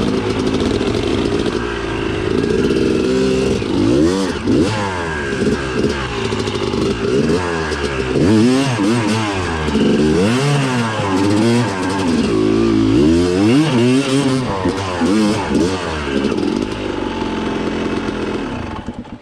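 Yamaha YZ250 two-stroke dirt bike engine being ridden hard, its revs rising and falling again and again as the throttle is opened and closed.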